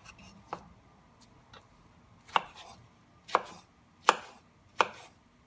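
Kitchen knife chopping galia melon flesh into chunks on a wooden cutting board: a faint knock about half a second in, then four sharp knocks of the blade against the board about a second apart.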